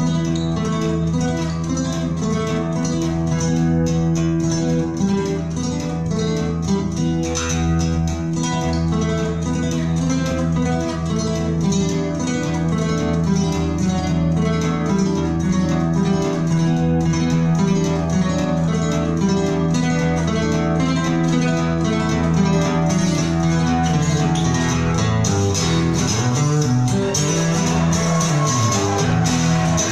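Music with a plucked guitar over a sustained bass, played back on a NAD 310 amplifier and Pure Sound PS204 speakers.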